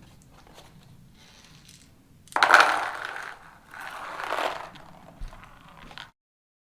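Hand-handling of the opened speedloader's plastic internals as loose BBs are cleared out: two scraping, rattling bursts of about a second each, the first the louder, then a few small clicks. The sound cuts off abruptly near the end.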